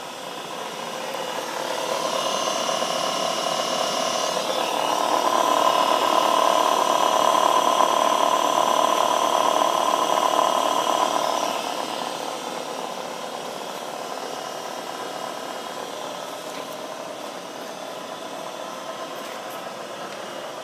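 Vectrax milling machine's variable-speed head and spindle running in high range with a steady whine, getting louder about two seconds in and again about four and a half seconds in as the speed goes up to around 2200 RPM, then easing back down about twelve seconds in.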